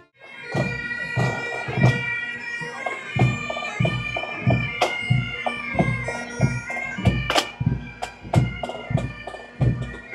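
Pipe band playing: bagpipes sounding a tune over their steady drone, with drum strokes beating about two to three times a second.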